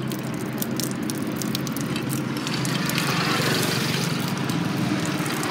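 Whiskey pouring in a stream from an upturned glass bottle and splashing onto a car's door panel and floor.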